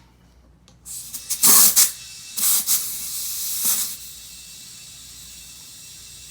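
Compressed air hissing as air is put into a freshly plugged car tire: three loud spurts of hiss in the first few seconds, then a steadier, quieter hiss.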